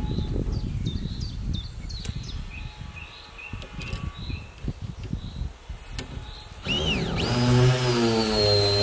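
Small birds chirping over a low, uneven rumble. Background music with sustained notes starts near the end.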